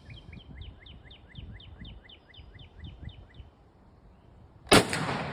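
A small bird sings a steady run of quick falling chirps, about four a second, for the first three and a half seconds. Near the end a single loud shot from an M1 Garand .30-06 rifle cracks and echoes.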